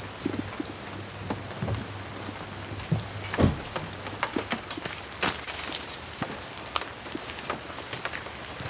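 Rain falling and drops striking a hard surface close by, many separate sharp ticks over a steady hiss, with one heavier knock about three and a half seconds in.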